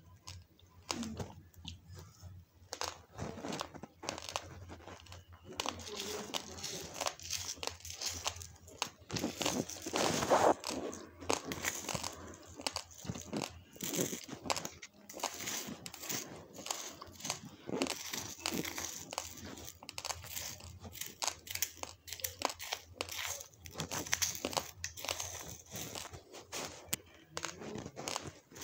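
Raw basmati rice being chewed, the dry grains cracking between the teeth in a dense, irregular run of close-up crunches, loudest about a third of the way in.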